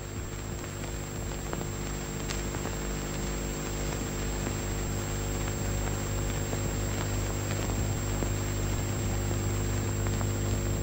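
Steady hiss and low hum of a worn old film soundtrack, with a few faint clicks.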